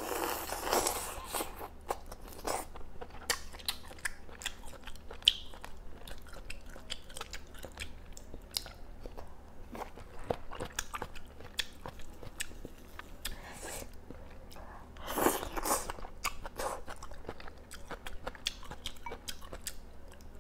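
Close-up chewing and biting of boiled duck meat, many small wet mouth clicks, louder at the first bite and again about fifteen seconds in.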